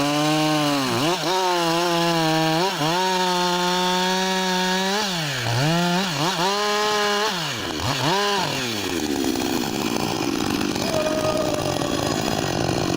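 Chainsaw running at high revs, its pitch dropping and recovering several times as it works in the cut. After about eight seconds it turns rougher and lower.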